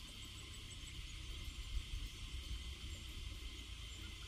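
Steady outdoor insect buzzing, with a few faint high chirps and a low rumble underneath.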